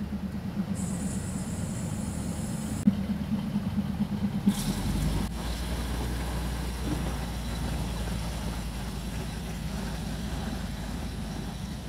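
Diesel train engine idling steadily with a low hum; a deeper rumble comes in about four and a half seconds in and holds.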